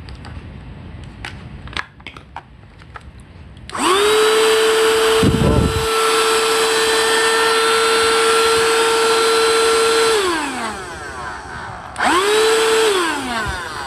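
Small cordless handheld vacuum cleaner switched on: its motor spins up fast to a steady high whine, runs for about six seconds, then winds down. It is switched on again briefly near the end and spins down. A few small clicks come before the first start.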